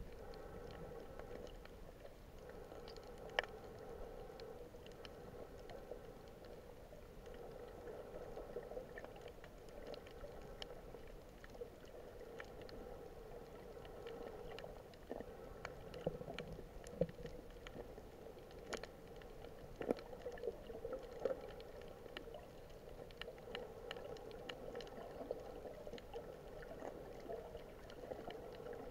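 Faint underwater sound picked up by a submerged camera on a coral reef: a steady hum with scattered sharp clicks and crackles.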